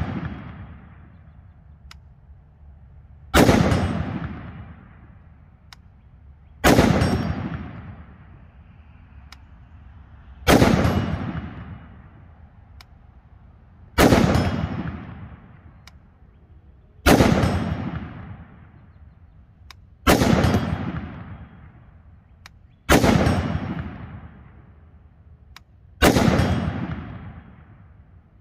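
Ruger SFAR .308 semi-automatic rifle firing slow, aimed single shots, eight in all at roughly one every three seconds. Each loud report is followed by a long echo that dies away.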